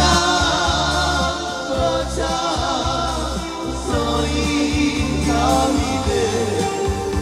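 Slovak Romani band playing live through a PA: a man singing with a wavering voice over electric guitar, bass guitar and keyboard, with a steady bass line underneath.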